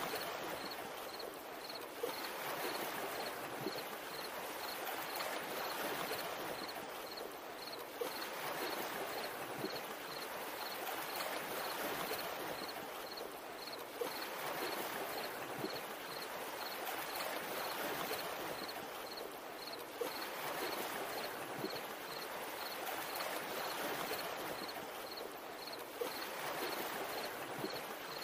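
Nature ambience of running or lapping water, a steady rushing hiss, with a faint high chirp repeating about twice a second and a soft knock about every six seconds.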